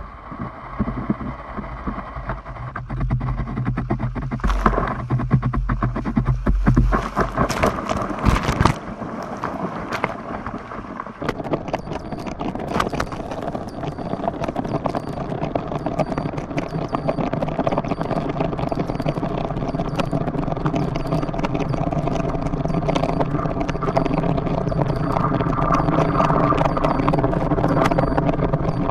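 Kiteboard skimming fast over the water: a dense rattling chatter of the board across the surface, under a steady humming tone that grows louder in the second half.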